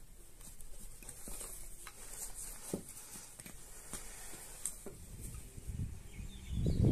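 Hands shaping soft bread dough on a wooden board, with faint pats, rustles and a few light taps as a wooden rolling pin is handled. Near the end a low, gusty rumble of wind on the microphone comes in and is the loudest sound.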